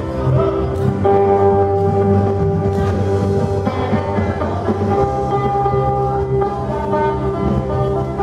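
Sape, the carved boat-shaped lute of Borneo's Dayak peoples, playing a plucked melody over steady held notes.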